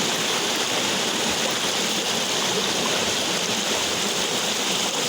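River water rushing and flowing steadily, a continuous hiss.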